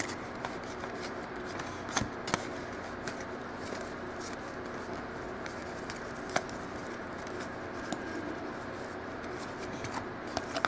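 A stack of football trading cards being flipped through and shuffled by hand, with a few sharp card clicks over a steady background hiss.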